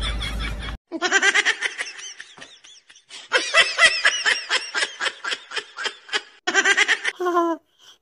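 A person laughing in fits of quick, breathy pulses, starting just under a second in after a sudden cut and going on in two long runs, with short pitched vocal sounds near the end.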